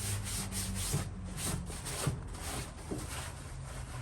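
Surface rust being scrubbed by hand off the car's sheet-metal body in quick back-and-forth strokes, over a low steady hum.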